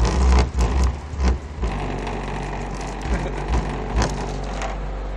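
Deep bass pulses from car subwoofers playing inside the closed car, heard from the roof, strongest in the first second and a half. A glass beer bottle knocks against the car's metal roof several times.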